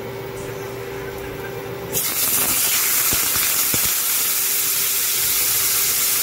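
Marinated pork steak laid into hot oil in a frying pan starts sizzling loudly about two seconds in, then keeps up a steady hissing sizzle with a few light clicks. Before the sizzle there is only a steady hum.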